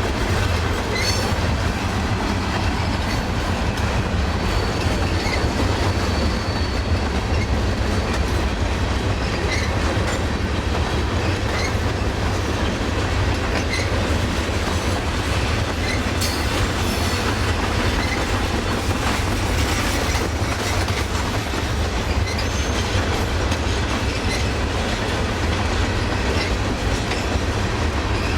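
Railroad cars rolling past at steady speed: a continuous low rumble with wheel clicks over the rail joints every couple of seconds.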